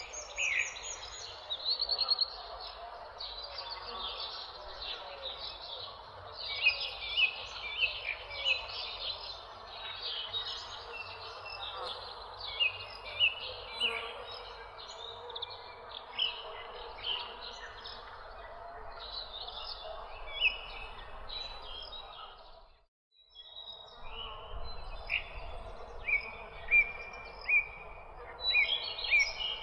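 A chorus of songbirds chirping and tweeting, many short high chirps and quick trills overlapping, over a steady background hiss. The whole sound cuts out for about a second late on, then resumes.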